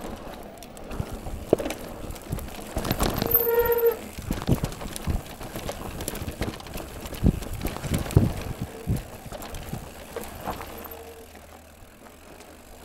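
Mountain bike riding over rough trail, clattering and knocking irregularly, with a short squeal about three seconds in and two fainter ones later; it quietens near the end.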